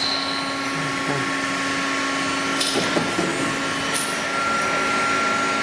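FICEP P803A CNC plate punching machine running with a steady whir and hum while it references (homes) its axes, with a couple of faint clicks.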